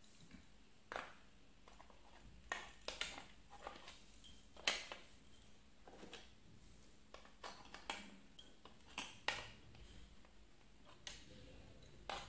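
Irregular light clicks and knocks of small hard parts being handled: trimmer attachments being fitted into their stand one after another.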